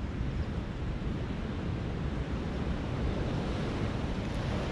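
Steady wind noise on the microphone over small waves washing onto the shore.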